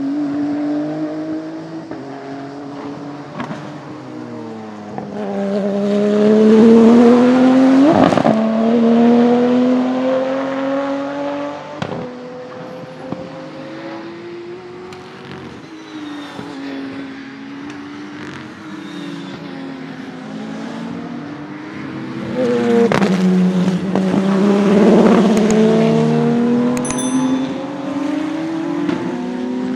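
Twin-turbocharged 3.9-litre flat-six of a Porsche 997 GT2 RSR race car running hard on track. Its pitch climbs and falls as it accelerates and slows, loudest twice, about six and twenty-three seconds in, with a few sharp cracks along the way.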